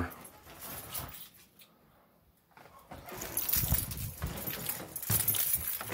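Footsteps on a bare floor with a clinking, jingling rattle from a person walking and handling the phone, starting about halfway through after a moment of near quiet.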